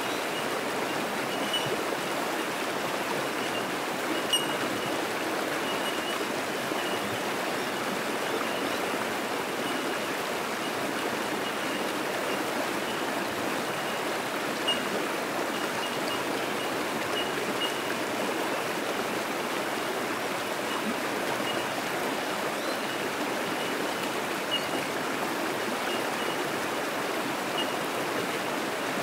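Creek water rushing steadily over shallow rapids, with short, high, single-note pings of bell miners (bellbirds) repeating throughout. A single sharp click about four seconds in.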